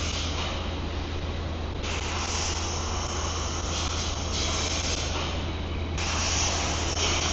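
Industrial processing equipment running: a steady electric-motor hum under a hiss whose brighter upper part cuts in and out in steps, about two seconds in, again at about four and a half seconds, and again near six seconds.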